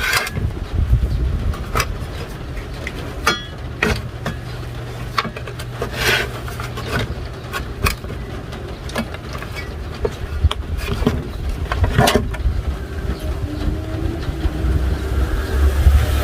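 Scattered sharp clicks and knocks of tools and parts being handled while the cooling fan is taken out of an inverter welding machine, over a steady low rumble that grows louder near the end.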